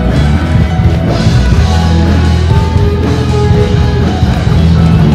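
Loud rock music from a live band, with a drum kit and guitar.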